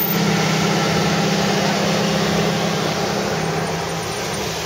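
Car engine running steadily at low revs, a low hum whose pitch drops slightly about three seconds in and fades near the end, with road and traffic noise around it.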